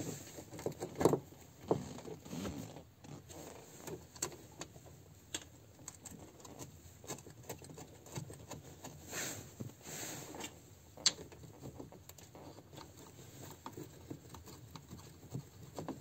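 Scattered small metallic clicks, knocks and rattles of bolts, hand tools and a new door check strap being fitted and screwed into a Lada Kalina door, with a couple of sharper knocks about a second in and about eleven seconds in.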